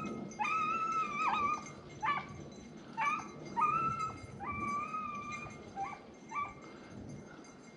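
Rabbit hounds baying on the trail of a rabbit: a string of about eight drawn-out cries and short yelps, growing fainter toward the end.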